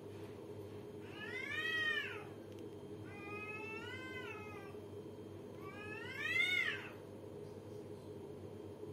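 Two cats yowling at each other in a face-to-face standoff: three long, drawn-out caterwauls, each rising then falling in pitch, the loudest about two seconds and six and a half seconds in. It is the challenge call of two cats squaring up to each other. A steady low hum runs underneath.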